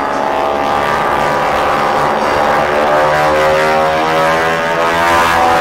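North American T-6 Texans' radial engines and propellers droning overhead in an aerobatic climb, a rich buzzing note that glides in pitch and grows louder.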